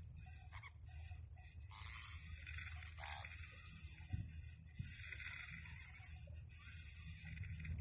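Drag of a Shimano Stradic CI4 4000 spinning reel slipping as a hooked giant trevally runs and strips line, a steady rasp over outdoor hiss that gets louder in steps.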